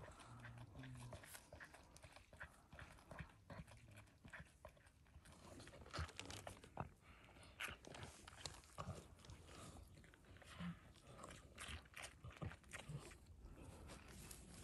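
Calf suckling from a cow's udder: irregular sucking and smacking clicks.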